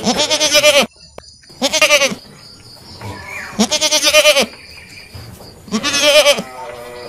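Young goats bleating: four loud, quavering bleats, each rising then falling in pitch, spaced about one and a half to two seconds apart.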